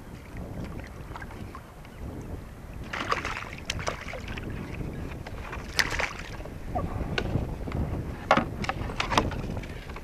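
Low wind rumble on the microphone, with a run of sharp splashes from a small hooked halibut thrashing at the surface beside the kayak, starting about three seconds in and bunching near the end.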